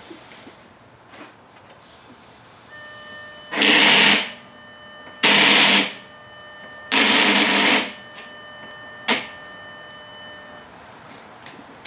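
An Audi S5's front wheels being steered at a standstill: three loud bursts of noise, each under a second, over a steady high tone, with a sharp click near the end.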